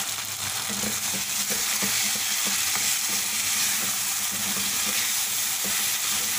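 Mutton karahi sizzling steadily in its own separated oil in a wok, the gravy cooked down dry, while a wooden spoon stirs it and knocks lightly against the pan now and then.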